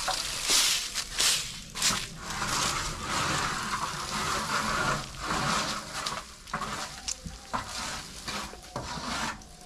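Irregular scraping and crunching of corrugated asbestos-cement roof sheets being slid down off a roof and handled, in uneven bursts without any steady rhythm.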